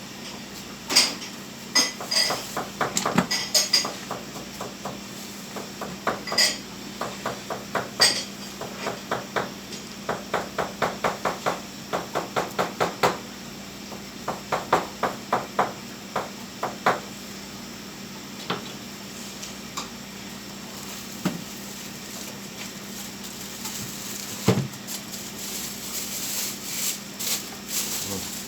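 Butcher's knife and metal tools clinking and knocking during beef butchery, with runs of quick, even knife strokes at about three or four a second. A steady low hum runs underneath.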